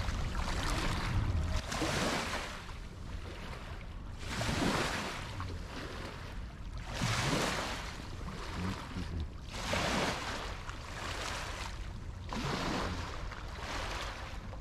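Small waves lapping and splashing at a lakeshore, a wash of water every two to three seconds, over a low steady rumble.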